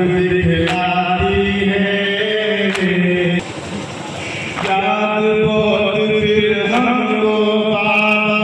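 Male voices chanting a nauha, a Muharram lament, in long held melodic lines over a loud sound system. The singing breaks off for about a second just before the middle, leaving only a noisy hiss.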